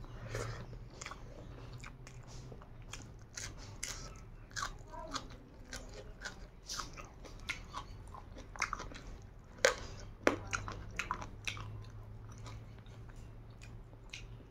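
A person chewing and biting a mouthful of rice and curry, eating by hand, with a steady run of irregular sharp mouth clicks, two of them loudest about ten seconds in.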